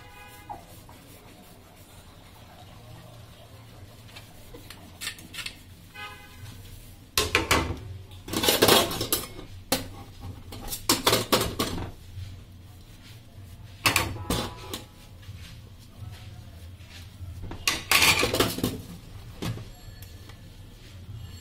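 Dishes being washed by hand in a stainless steel sink: a sponge scrubbing a plate and steel spoons, with clinks and clatter of crockery and cutlery against the steel. There are several louder stretches of scrubbing and clatter, over a steady low hum.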